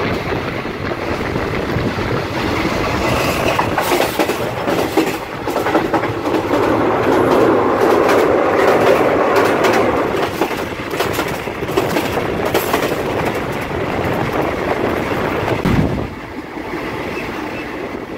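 Thai passenger train running on the track, heard from the open gangway between carriages: a loud, steady rattle of wheels and coupled cars with many metal clanks. It is loudest about halfway through and eases a little near the end.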